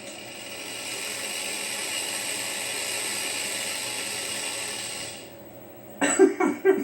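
Pet snake hissing: one long, steady hiss lasting about five seconds, fading out toward the end, from a snake irritated at being disturbed.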